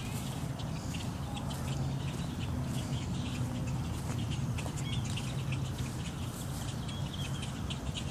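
Small birds calling over and over in short chirps and clicks, the alarm calls of a flock mobbing a heron that has caught one of them. A steady low hum runs underneath.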